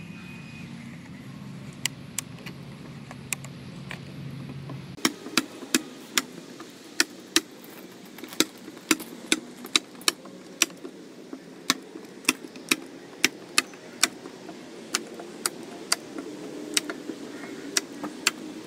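Building work: a run of sharp, irregular knocks or taps, roughly one or two a second, over a steady low hum that shifts about five seconds in.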